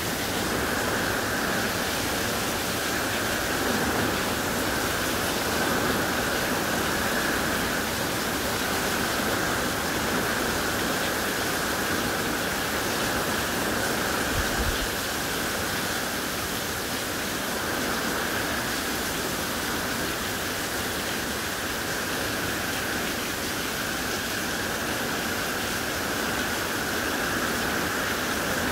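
Heavy rain from a hurricane's outer band pouring steadily onto grass and trees, an even, unbroken hiss. A brief low thump comes about halfway through.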